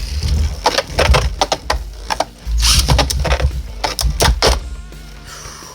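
Beyblade spinning tops clashing in a plastic stadium: clusters of sharp cracking hits over the low rumble of the tops spinning and grinding on the stadium floor.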